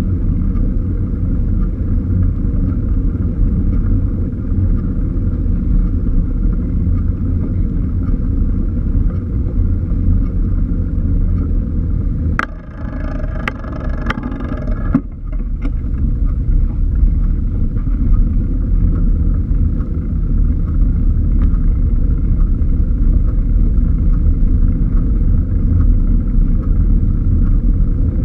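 Steady low rumble of wind buffeting and road noise on a bicycle-mounted action camera's microphone while riding. About halfway through it eases for a couple of seconds, with a few sharp clicks.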